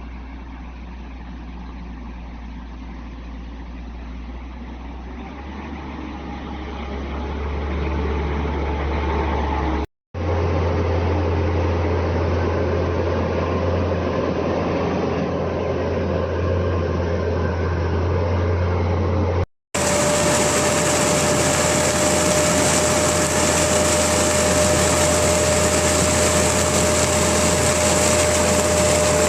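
Skid steer loader's engine running steadily, in three stretches split by abrupt cuts. It grows louder partway through the first stretch, and a steady high whine runs through the last one.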